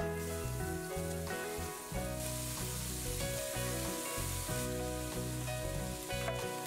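Diced pancetta sizzling in a frying pan and stirred with a wooden spatula; about two seconds in, with sliced shallots, leek and garlic now in the pan, the sizzle turns louder and brighter for a couple of seconds. Light background music plays underneath.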